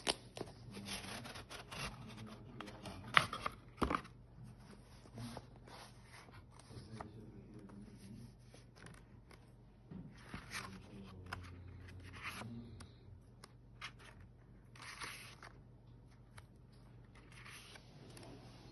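Pages of a softcover photo book being handled and turned: short bursts of paper rustling and sliding, with two sharper knocks a little after three seconds and near four seconds in.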